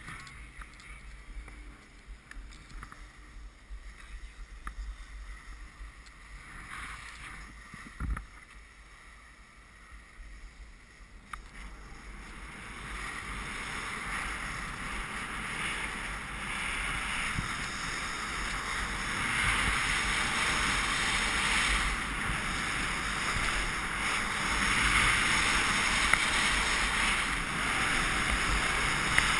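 Skis hissing and scraping over packed snow, with wind rushing over a GoPro's microphone. A single thump comes about eight seconds in, and from about twelve seconds in the hiss grows steadily louder.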